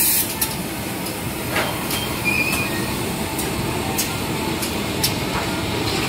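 Automated ceramic tableware finishing machines running: a steady mechanical hum with sharp clicks and knocks at irregular intervals, roughly once a second.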